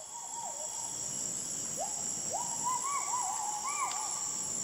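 Tropical forest ambience: a steady high-pitched insect drone under repeated whistled animal calls that sweep up and fall back, coming several in quick succession in the middle.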